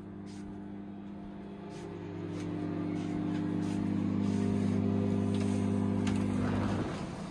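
Microwave oven running: a steady electrical hum that grows louder toward the middle and cuts off suddenly near the end. A door is pulled open just before the hum stops.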